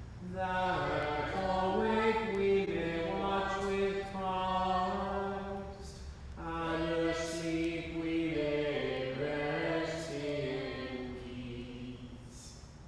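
Unaccompanied plainsong chant of sung Compline: two long sung phrases on mostly held notes moving in small steps, the second fading away near the end.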